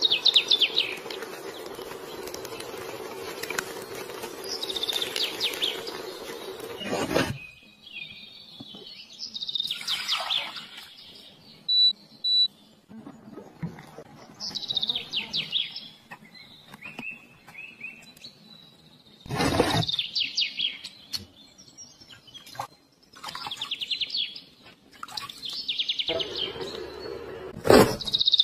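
Small birds chirping: quick runs of rapid, falling chirps every few seconds, with a few sharp clicks in between.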